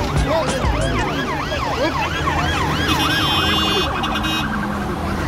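Emergency vehicle sirens yelping: several fast rising-and-falling wails overlapping, each sweep lasting about a quarter of a second. About three seconds in a steady, blaring tone joins for over a second.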